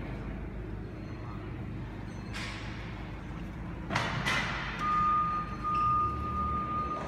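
Forklift's warning alarm sounding a steady high tone from about five seconds in, over the hum of a large hall. Before it, two clattering knocks echo through the hall.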